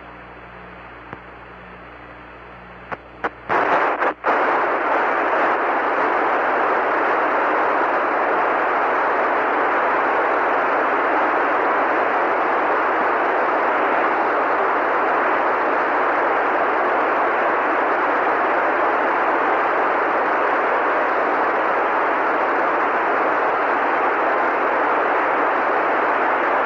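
Apollo air-to-ground radio loop: a low hum, then a few clicks about three seconds in and a loud, steady hiss of radio static. The static marks the communications link with the lunar module Eagle dropping out.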